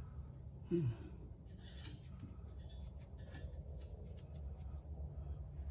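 Light scraping, rubbing and clicking of metal parts being handled, heard as scattered short scrapes, while exhaust pipes are being fitted under a car. A short grunt falls in pitch about a second in.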